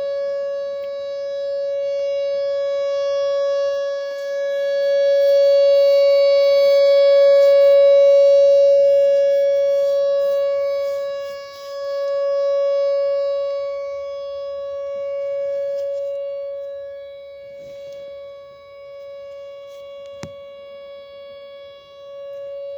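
Whelen WPS 4004 electronic outdoor warning siren sounding its Alert signal: one steady tone with several overtones, swelling and fading in loudness.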